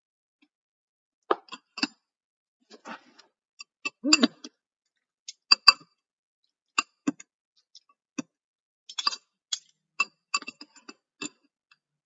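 Metal spoon clicking and scraping against a clear plastic tub while sambal is spooned out: a string of irregular sharp little taps, starting about a second in.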